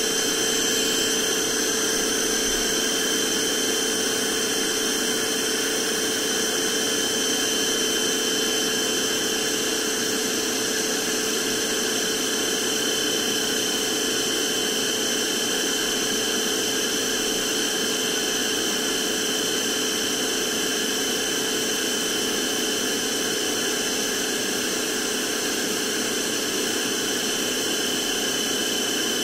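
NOVETE VT-DH003 cordless handheld vacuum cleaner running steadily: an even rush of air with a steady high motor whine on top, holding at one level throughout.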